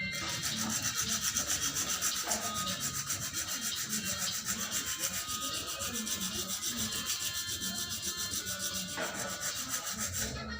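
Sandpaper rubbed back and forth by hand in quick, even strokes, about five a second: a surface being sanded down by hand.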